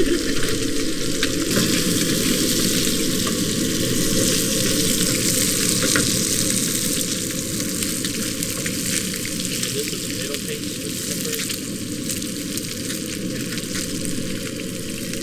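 Pieces of striped bass sizzling as they fry in a nonstick pan on a propane camp stove, turned now and then with a wooden spatula. The sizzle is a steady hiss with small scattered crackles.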